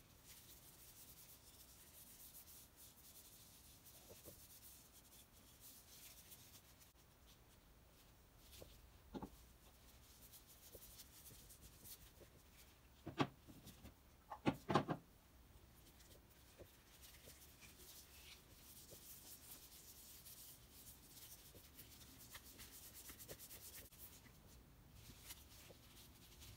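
Faint rubbing of a cloth over the wooden handle and knob of a hand plane as an oil finish is wiped on. A few light knocks break in, one about nine seconds in and a louder cluster around thirteen to fifteen seconds in.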